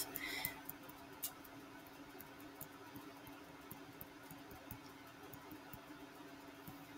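Faint scattered ticks and taps of handwriting being drawn onto a screen with a pen tool, over a steady low hum.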